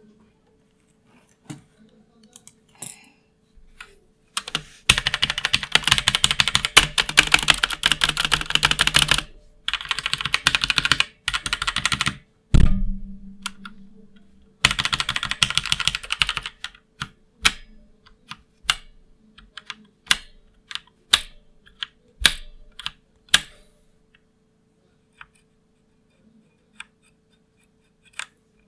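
MeToo Zero mechanical keyboard with Outemu Red linear switches being typed on: a few scattered key presses, then bursts of fast continuous typing with one heavier thud about twelve seconds in, then slower separate keystrokes that thin out toward the end.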